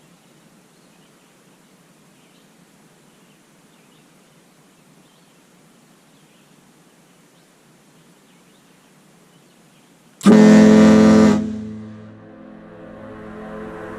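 Airchime KM85 and KM110 ship air horns sound one short, loud, many-toned blast about ten seconds in, cutting off sharply after about a second. The echo comes back off the mountains a moment later and swells for a couple of seconds. Before the blast there is only quiet open-air background.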